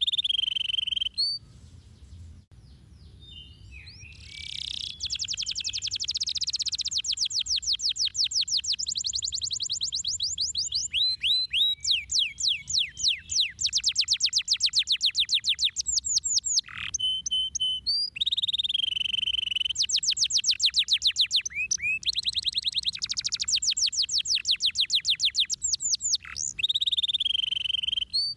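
Domestic canary singing a long song of rapid rolling trills, many notes a second, mixed with held whistled notes. There is a pause of about three seconds near the start.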